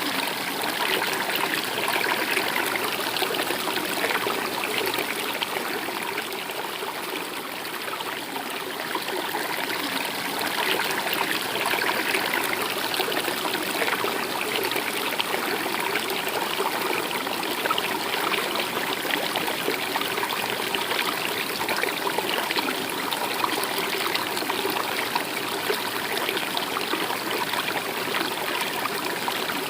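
Stream water running steadily, an even rushing trickle with a slight dip in loudness about six to nine seconds in.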